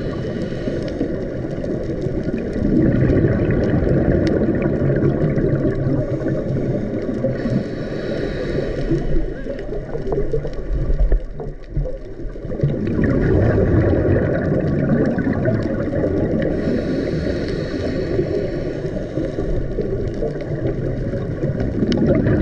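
Underwater sound through a dive camera's housing: a steady low rumble with the faint drone of boat engines passing overhead. Every eight or nine seconds a louder bubbling hiss, the divers' exhaled regulator bubbles.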